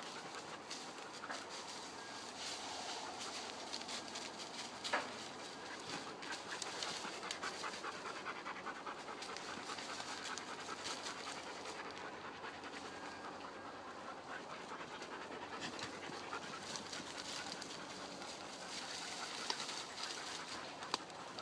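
A dog panting, with dry leaf litter crackling underfoot and a sharp click about five seconds in.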